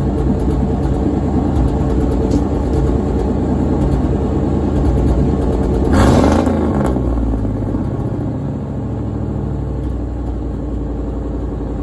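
1989 truck's engine running just after a start from about three weeks of sitting. It blips up once about six seconds in, then settles back to a steady, slightly lower idle.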